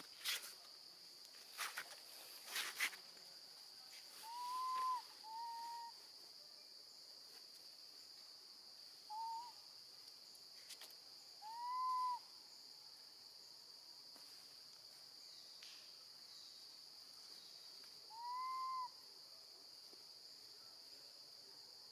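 Baby monkey calling for its mother: five short, arched, whistle-like cries spaced several seconds apart. A steady high insect drone runs underneath, and there are a few light clicks in the first three seconds.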